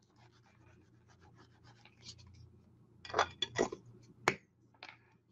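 Faint scratching as the tip of a liquid-glue bottle is dragged along a narrow paper strip. About three seconds in come louder bursts of paper scraping and handling, then a sharp tap and a lighter one.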